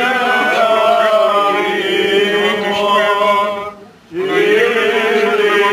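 Greek Orthodox Byzantine chant sung by male voice, in long, slowly winding held notes, with a short breath pause a little before the four-second mark.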